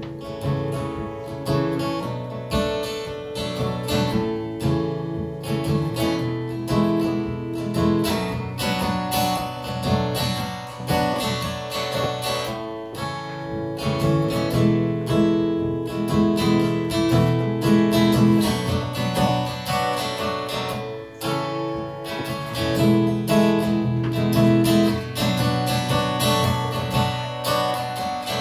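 Acoustic guitar strummed steadily through an instrumental break in a song, with no singing.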